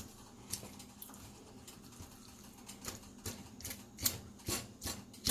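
Cooking utensil tapping and scraping in a pan of egg fried rice: irregular light clicks, with a cluster of louder knocks from about three to five seconds in.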